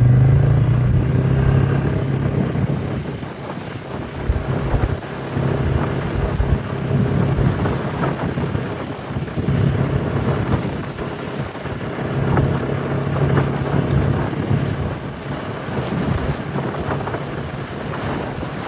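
A motor vehicle's engine running as it drives, its level rising and falling, with scattered knocks and rattles.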